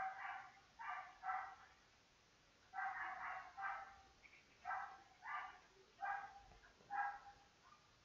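A dog barking: about nine short, high-pitched barks in uneven groups of one to three.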